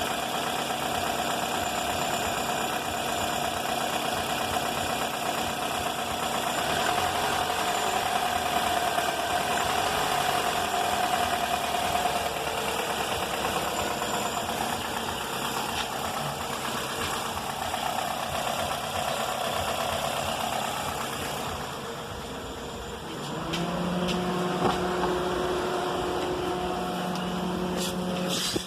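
2004 Toyota Corolla four-cylinder engine idling with a persistent abnormal noise from the engine, a noise that remains after a full rebuild including a new timing chain, chain tensioner and VVT valve. Near the end a steadier hum comes in over the engine.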